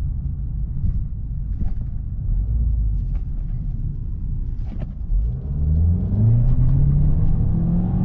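Ford Kuga's turbocharged petrol engine and road rumble inside the cabin, low and steady at first with a few light clicks. From about five seconds in the engine note rises and grows louder as the car accelerates, then dips near the end as the automatic gearbox changes up.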